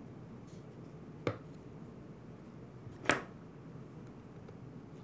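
Two short clicks, the second louder, as hands work the new starter rope through the lawnmower recoil starter's plastic housing and pulley, over a faint steady room hum.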